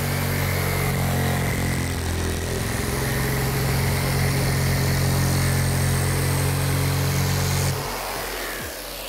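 Jigsaw cutting plywood, running steadily with a low buzz and a high motor whine. Near the end it is switched off and the whine falls away as the motor spins down.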